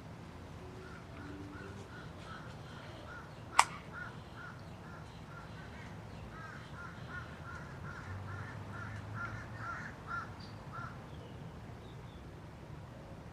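A long run of short, arched bird calls, about three a second, with a brief pause midway, over a steady low hum. A single sharp click about three and a half seconds in is the loudest sound.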